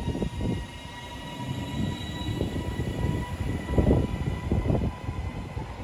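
Northern Class 331 electric multiple unit moving along the platform: a steady whine from its traction equipment over the rumble of wheels on rail.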